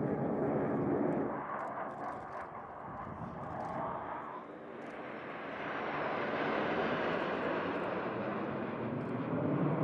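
Jet noise from a formation of BAe Hawk jet trainers passing overhead: a steady rushing roar that dips a second or so in and swells again about halfway through.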